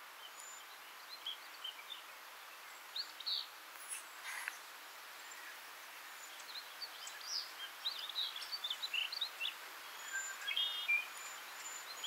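Several woodland songbirds singing, with short chirps and quick warbled phrases that come thickest in the second half, over a faint steady hiss.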